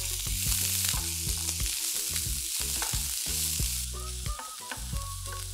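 Onions frying in a really hot, lightly oiled pan, sizzling steadily while a spatula stirs them.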